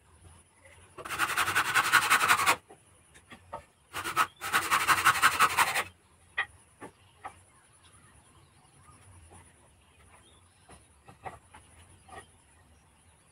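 Hand saw cutting through a small piece of wood in two runs of quick, rapid strokes, each about a second and a half long. Light wooden knocks and clicks follow as the cut pieces are handled.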